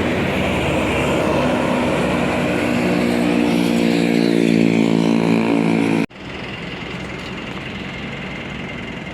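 A bus passing close by, its engine note rising as it accelerates. About six seconds in the sound cuts off abruptly to a quieter, steady engine hum.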